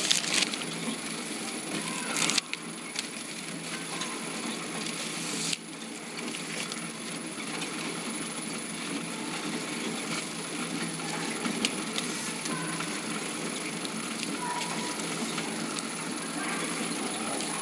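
Horizontal flow-wrap (pillow) packing machine running: a steady mechanical noise with scattered light clicks and a thin, steady high whine.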